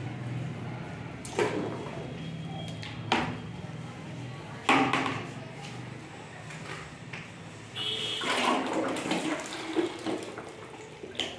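Thinned white wall primer poured from one plastic bucket into another, a thick gushing, splashing pour in the second half. Before it, three sharp knocks as the plastic buckets are handled and set down.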